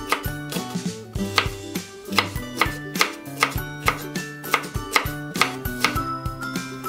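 Kitchen knife chopping a green pepper on a wooden cutting board: sharp knocks of the blade on the board, about two or three a second, over steady background music.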